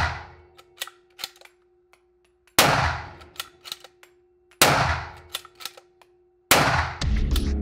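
Nosler Model 48 Liberty bolt-action rifle fired three times, about two seconds apart, each shot with a long decaying echo off the range walls. Sharp clicks between the shots are the bolt being worked. Loud music comes in near the end.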